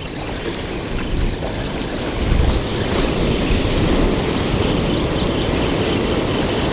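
Ocean surf breaking and washing up the beach, a steady rush, with wind rumbling on the microphone that swells about two seconds in.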